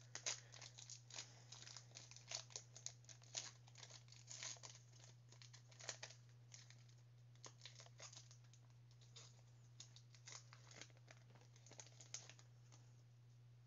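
Panini Mosaic trading-card pack wrapper crinkling and tearing as it is ripped open: a run of faint, irregular crackles that thin out near the end. A steady low hum runs underneath.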